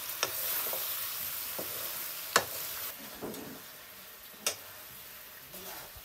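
Pork sizzling as it fries in a wok, stirred with a metal ladle that scrapes along the pan and knocks sharply against it three times, loudest about two seconds in. The sizzle gets quieter after about three seconds.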